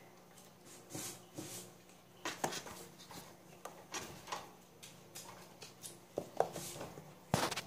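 Scattered short taps and rustles of kittens moving and playing in a wire cage with a plastic tray floor, with a louder rustling burst near the end.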